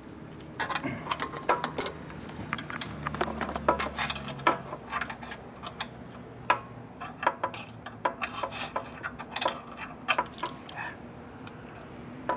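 Irregular light metallic clicks and taps from the throttle linkage and cable on a 1952 Harley-Davidson panhead's Linkert carburetor being worked and adjusted by hand, while the throttle's return is being set.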